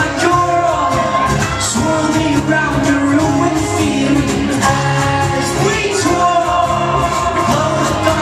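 Live synth-pop band playing a song, with a singer's voice over steady held keyboard tones, loud and continuous.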